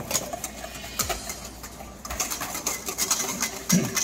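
Wire whisk beating thickened custard in a stainless steel bowl, the wires clicking rapidly against the metal, with a short low scraping sound near the end.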